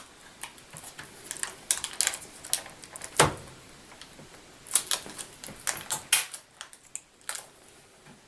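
Scattered small clicks and taps of hands handling a laptop screen panel and its connector tape, with one louder knock about three seconds in.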